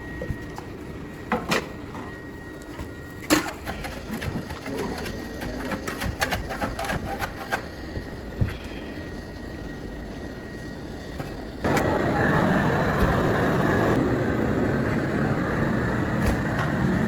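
Workshop knocks and clicks, then a loud machine starts suddenly about twelve seconds in and runs steadily.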